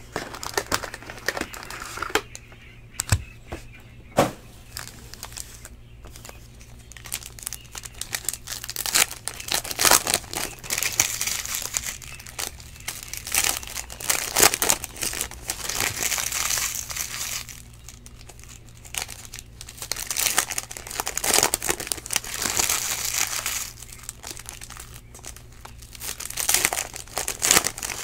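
Foil wrappers of Panini Prizm baseball card packs crinkling and tearing as packs are opened and the cards handled, in irregular bursts with short pauses. A steady low hum runs underneath.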